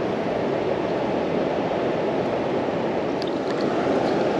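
Steady rushing of water pouring over a large river weir, running high and extra loud after heavy rain.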